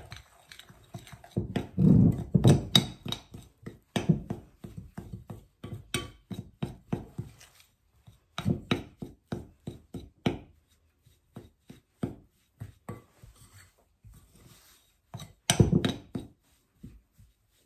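A fork mixing crumbly pie-crust dough in a glass bowl: quick scraping strokes and clinks against the glass as ice water is worked into the flour and shortening. The strokes come in spurts, loudest about two seconds in and again near the end, with a quieter stretch between.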